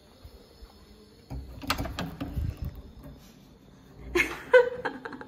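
A wooden door being opened, with its handle and latch clicking and the door moving, about a second and a half in. A short vocal cry from someone in the room comes about four seconds in.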